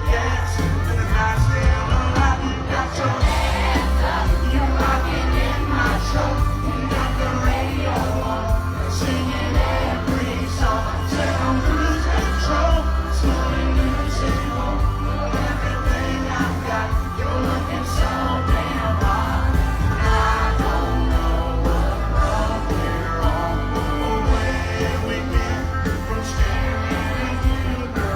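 Live country band and singer performing a song through a loud concert PA, with heavy bass and a steady beat, and the crowd yelling and singing along.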